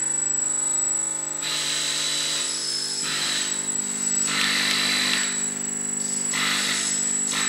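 Electronic noise from circuit-bent gear: a steady buzzing tone with a thin high whine above it, broken three or four times by bursts of harsh hiss.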